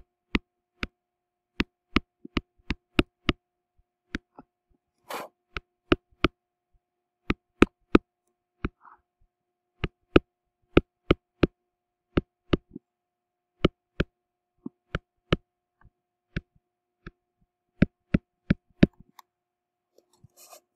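Sharp, irregular clicks, about one or two a second, from a stylus tapping on a tablet screen while writing, over a faint steady hum.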